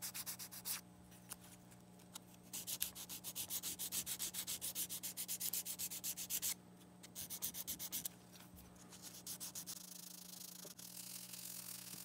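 Sandpaper worked by hand over a pink dental-material bite plate on a metal saxophone mouthpiece, smoothing it: quick back-and-forth strokes, about four a second, with short pauses and lighter, faster rubbing near the end.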